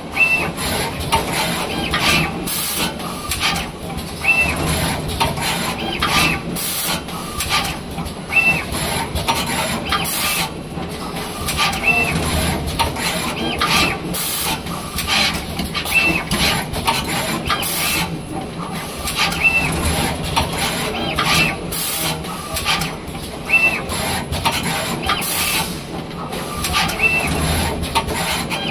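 Automatic wire soldering machine running through its cycle: repeated short hisses of air from its pneumatic heads over a steady machine hum, with a short high chirp every few seconds.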